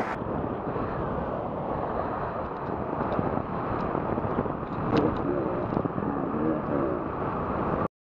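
Steady wind rush over the microphone of a bicycle camera riding at speed, mixed with road and traffic noise, cutting off suddenly near the end.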